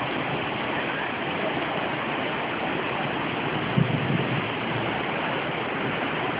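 Waterfall rushing in a steady, dense roar of falling water, with one brief low thump a little past halfway.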